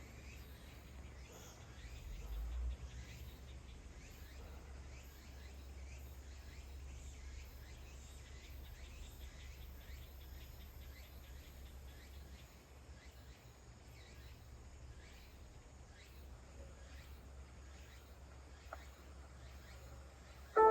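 Faint outdoor ambience. Short high chirps repeat about once a second over a steady low rumble, with a brief low swell about two seconds in.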